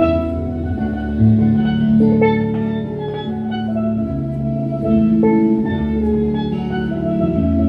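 A steelpan played with sticks, a run of short ringing melody notes over accompanying music that carries sustained low bass notes.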